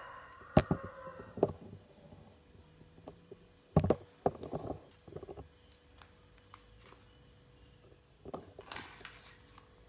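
The tail of a rooster's crow, then scattered sharp clicks and soft knocks of handling, loudest about half a second in and about four seconds in, as a strawberry plug plant is set down on a tiled floor.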